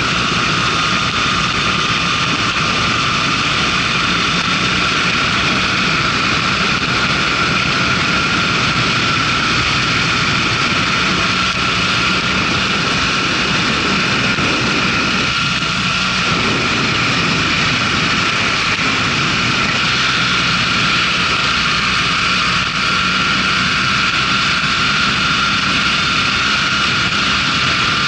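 Onboard sound of a motorcycle riding at road speed: the engine running steadily under a constant rush of wind.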